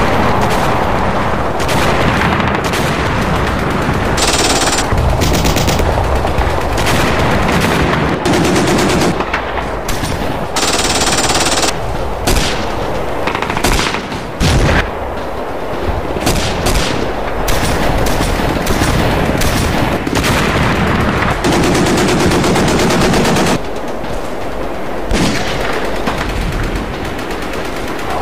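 Battle gunfire: rapid bursts of automatic machine-gun fire mixed with other gunshots, almost without pause, easing briefly about 14 and 23 seconds in.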